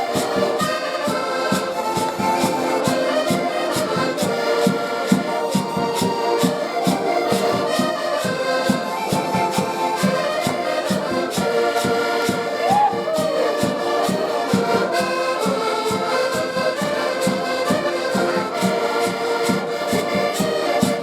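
A live band playing Portuguese traditional-style popular music with a steady beat, held melody notes over regular percussion.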